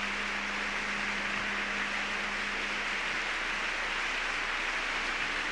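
Steady hiss of background noise on an old audio recording, with a faint low hum that stops about three seconds in.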